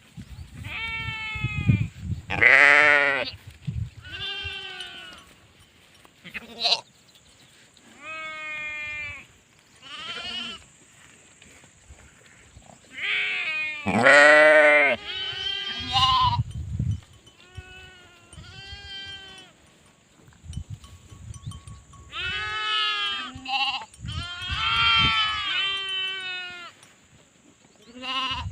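Sheep bleating again and again: a string of quavering baas, each about a second long, at different pitches, some loud and some fainter.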